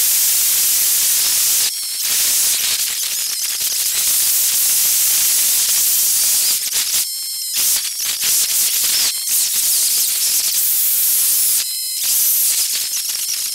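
Steady, high hiss of wind rushing over a camera on a moving motorcycle, sped up, with abrupt jumps and short dips every second or two.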